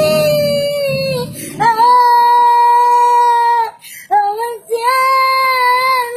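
A woman singing loudly in long held high notes, the longest about two seconds, with short breaks between them and no accompaniment heard.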